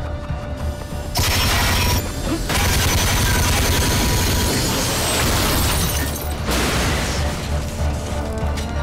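Film sound design: a low rumbling score under loud rushing noise that surges about a second in, breaks off briefly, then swells again for about four seconds before easing.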